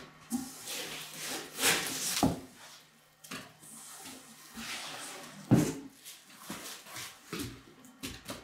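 Plastic wrapping and cardboard packaging rustling and scraping as a plastic-wrapped rinse bucket and foam inserts are pulled out of a cardboard box, with a louder knock a little past halfway.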